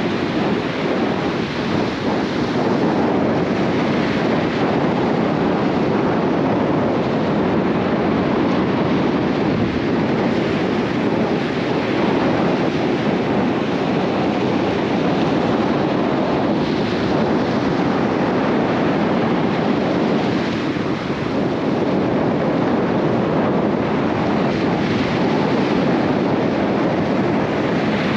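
Breaking surf washing steadily onto the beach, with wind buffeting the microphone.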